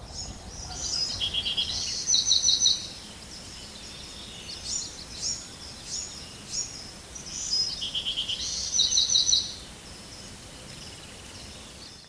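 A songbird singing two full songs about six seconds apart. Each song is a run of varied high notes ending in fast trills, one lower and buzzier and one higher and louder, over a steady background hiss.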